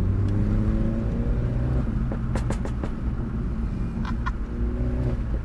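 Mini John Cooper Works (F56) turbocharged four-cylinder with a centre-resonator-delete exhaust in sport mode, heard from inside the cabin. The engine revs up under acceleration, then the exhaust crackles and pops a little after two seconds in, and the engine pulls again near the end.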